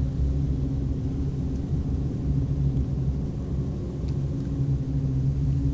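A low, steady droning rumble with two held low tones.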